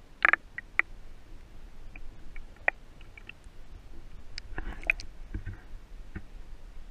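Underwater sound picked up through a waterproof camera housing: a low rumble with scattered sharp clicks and crackles. The loudest cluster of clicks comes just after the start, and a rougher crackle comes about five seconds in.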